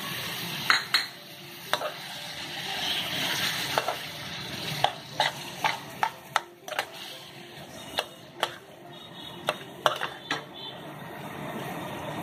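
Chicken mince frying in oil in a metal wok, sizzling steadily. A perforated metal skimmer stirs and scrapes it, knocking against the pan with irregular sharp clicks.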